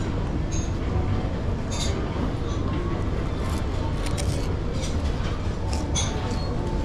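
Railway station ambience: a train's steady low rumble, with scattered short clicks and knocks and a few brief high squeals.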